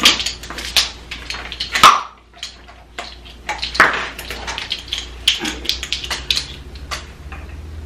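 Ground cumin shaken out of a spice jar into a plastic measuring spoon: quick runs of rattling shakes and taps, with a sharp knock and a short pause about two seconds in, then more shaking.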